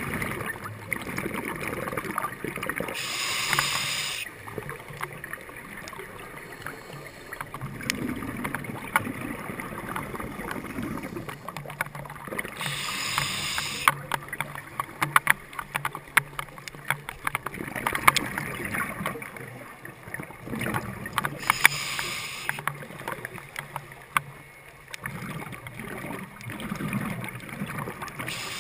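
Scuba diver's exhaled regulator bubbles heard through an underwater camera housing: a hissing rush of bubbles about once every nine seconds, with crackling clicks and a faint low hum between breaths.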